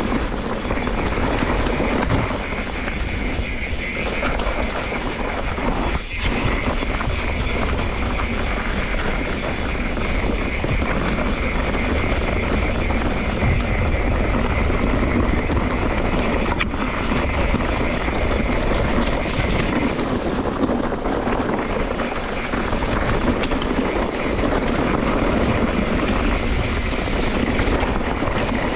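Steady rushing noise of a mountain bike being ridden: wind buffeting the microphone over the rumble of the bike rolling along the trail.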